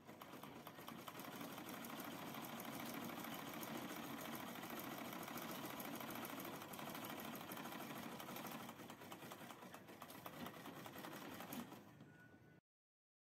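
Vintage manual sewing machine stitching through fabric: a steady rapid clatter of the needle and mechanism that eases off a little in the last few seconds and stops shortly before the end.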